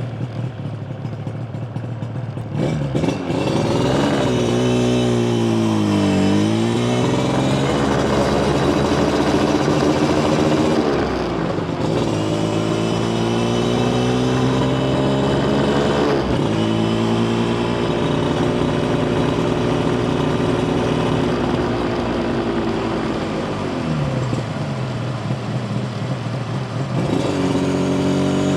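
Yamaha TZR250 1KT's two-stroke parallel-twin engine under way: quieter at first, then pulling up through the revs with pitch climbs broken by gear changes about twelve and sixteen seconds in, holding steady, dropping off around twenty-four seconds in and pulling away again near the end.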